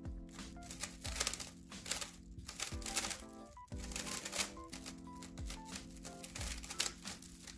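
Background music with a steady beat, over the quick clicking and clacking of a 3x3 speedcube being turned during a solve.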